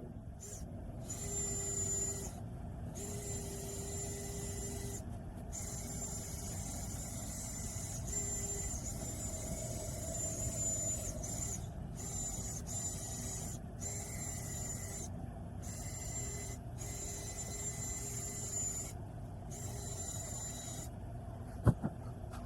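A hand-held power tool running with a high whine and a rasping, scraping sound. It stops briefly about eight times, as if the trigger is let go and pulled again.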